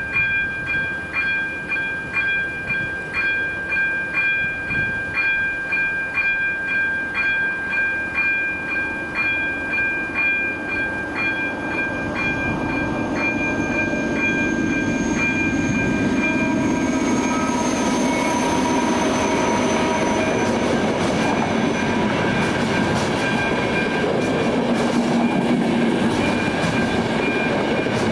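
Electronic warning bell of a Czech level crossing ringing steadily at about two strokes a second. A train then passes close by: its noise builds from about halfway and drowns the bell, there is a whine for a few seconds, and the wheels clatter over rail joints near the end.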